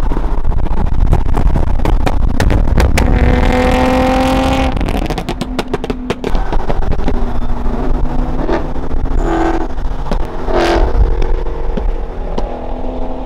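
Car engines and exhausts running loud and hard at highway speed, a deep rumble broken by many sharp pops, with one held engine note about three to five seconds in.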